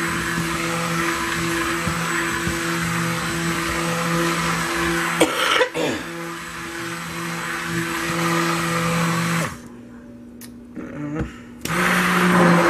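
Electric stick blender running in a bowl of liquid, blending cream and yogurt into the soap oils, with a steady motor hum. A couple of sharp knocks come about five seconds in. Near the end it switches off for about two seconds, then starts again.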